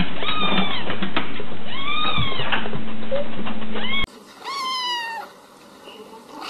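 Kittens meowing: two high meows that rise and then fall in pitch over a steady hum and noisy background, then, after an abrupt change to a quieter recording about four seconds in, a different kitten gives one longer meow that falls in pitch, with another starting near the end.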